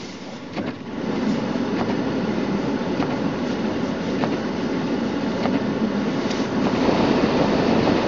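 Road noise inside a moving car: a steady rumble of tyres on a snowy road, with scattered ticks and clicks, getting louder about a second in.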